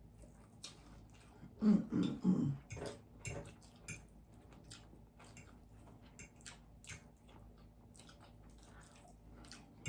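Chewing and biting while eating fried fish, with scattered small clicks and crunches and a brief, short hum of voice about two seconds in.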